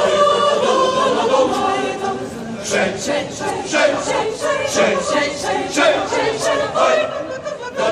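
Mixed choir singing a cappella: a held chord at first, then from about three seconds in a rhythmic passage with sharp, evenly spaced accents.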